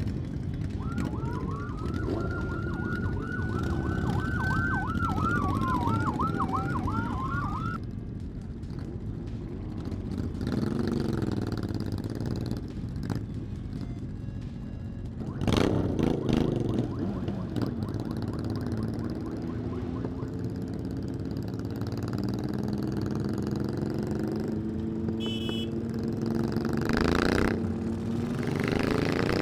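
A siren sweeping up and down, slow wails alternating with a fast yelp, stops about eight seconds in. Under it, and for the rest of the time, motorcycle engines run and pull away in a group, including the near Yamaha FZ6 S2 with a baffle-free exhaust, revving and accelerating with rising pitch. The loudest rev comes about halfway through.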